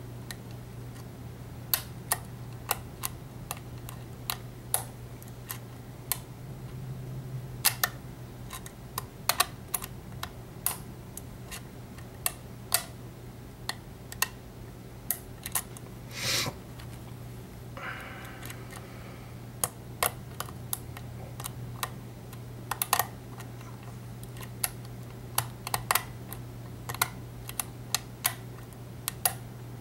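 Metal lock pick clicking against the pin stacks inside an EVVA ALS euro cylinder during single-pin picking under tension: irregular small sharp clicks, over a steady low hum.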